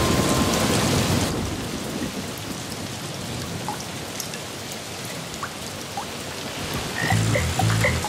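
Heavy rain pouring off a roof's edge, loudest in the first second and then steady. About seven seconds in, frogs start croaking in a fast, even rhythm of about three croaks a second over the rain.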